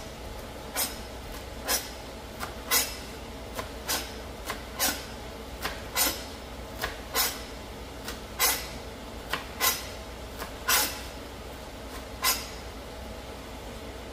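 Knife cutting through mustard greens onto a cutting board: sharp, irregular knocks, roughly one a second, over a steady background hum.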